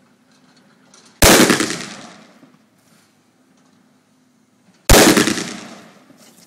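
Two shots from a .50 Action Express Desert Eagle pistol, about three and a half seconds apart, each very loud and sharp and ringing out over about a second.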